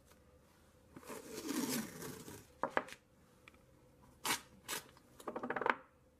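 Blue painter's tape being pulled off its roll and pressed around a small wooden box: a long peel about a second in with a falling pitch, a few sharp taps, and a fast ripping rattle near the end as more tape is unrolled.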